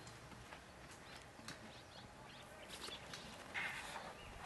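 Quiet outdoor background with a few faint, scattered clicks and a brief rustling noise about three and a half seconds in.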